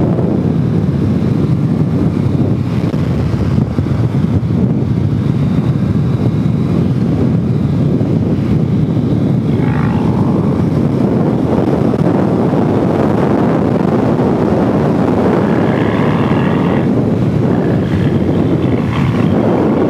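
Motorcycle riding at a steady cruising speed: engine and road noise mixed with wind rushing over the microphone.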